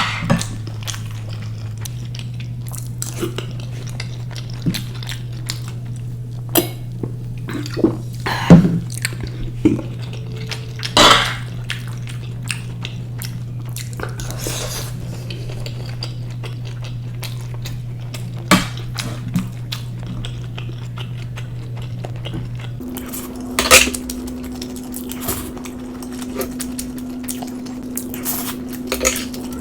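Cutlery clinking and scraping against a plate during eating, with scattered chewing and sharp clicks. A steady low hum runs underneath and steps up to a higher hum about 23 seconds in.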